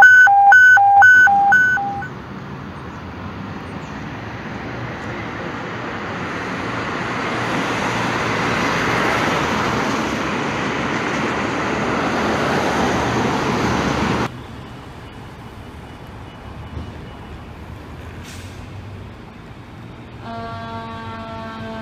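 About four loud electronic beeps, then a swelling rush of street traffic noise that cuts off suddenly partway through, followed by quieter traffic. Near the end, a fire engine siren starts to sound.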